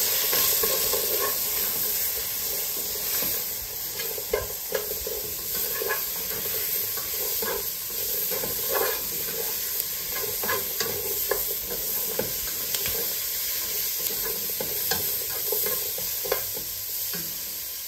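Onion and garlic sizzling in hot oil in a pan, stirred with a spoon that clicks and scrapes against the pan at irregular intervals.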